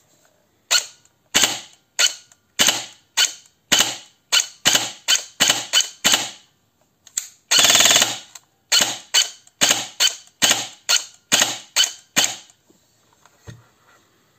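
G&G ARP9 airsoft electric gun with a dual sector gear firing: a string of single shots about two a second, broken about halfway through by one short burst of rapid fire. The owner guesses the semi-auto is misbehaving because the cutoff lever does not reach the microswitch of the electronic fire control unit.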